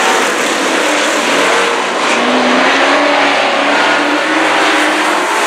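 Several dirt-track race trucks racing in a pack, their engines running loud, with pitches that overlap and rise and fall as the drivers get on and off the throttle through the turn.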